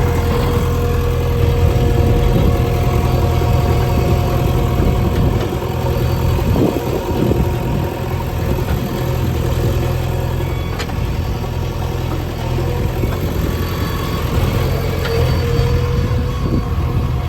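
JCB 3DX backhoe loader's diesel engine running steadily while the machine works, with a few short knocks.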